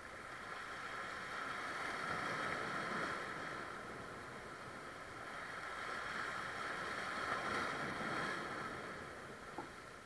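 Rough sea surf washing against the rocks of a breakwater, a steady rushing that swells twice, about two seconds in and again near eight seconds.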